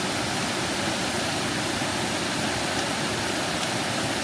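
Waterfall cascading over shale: a steady, unbroken rush of falling water.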